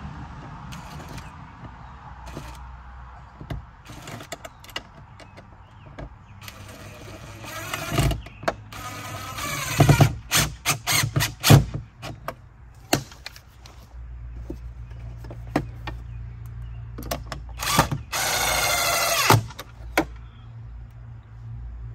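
Cordless drill driving screws into a recessed outlet box mounted in a house wall. The motor whines in short trigger bursts from about eight seconds in, then runs longer for about a second and a half near the end, with light clicks and knocks between.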